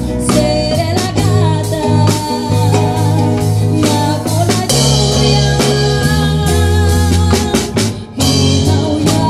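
Live band music: a woman sings a Spanish-language ballad into a microphone over a drum kit, hand drums, trumpets and acoustic guitar, with regular drum hits. The music drops briefly about eight seconds in.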